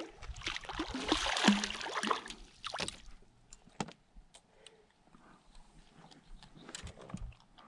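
A hooked channel catfish thrashing and splashing at the surface beside the boat for about the first three seconds as it is reeled in, followed by only faint scattered clicks.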